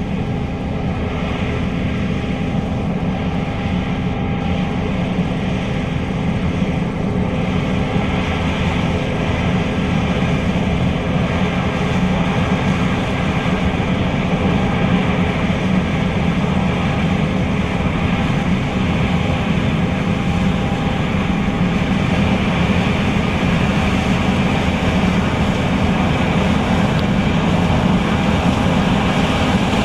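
John Deere S660 combine running steadily while harvesting soybeans: a loud, even drone of engine and machinery with no breaks.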